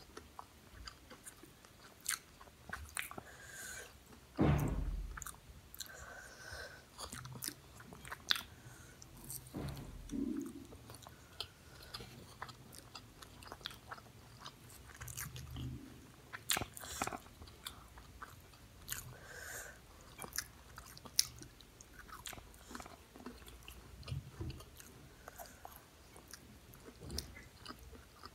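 A person chewing a mouthful of fried samosa close to the microphone: soft wet mouth sounds, small crunches and lip clicks, with one louder low thump about four and a half seconds in.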